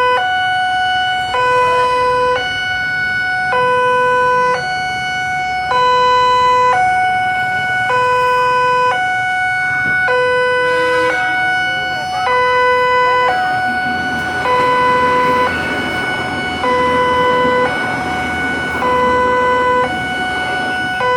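Two-tone hi-lo siren alternating between a low and a higher tone about once a second, loud and steady. A broad rushing noise rises underneath it in the second half.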